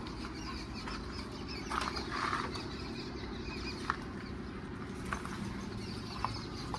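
Birds chirping over a steady low rumble, with a few sharp clicks.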